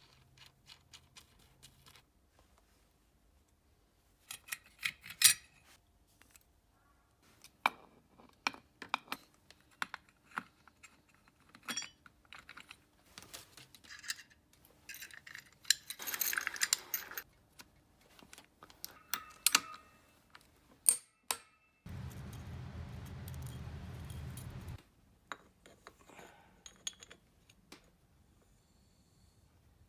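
Hand tools and small metal parts clinking and clicking as they are handled, in irregular bursts. About two-thirds of the way through, a steady mechanical noise runs for about three seconds, then stops suddenly.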